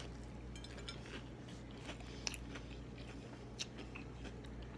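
Close-up chewing of a mouthful of fried deviled egg, with small clicks, two of them sharper, about two seconds in and three and a half seconds in, over a steady low hum.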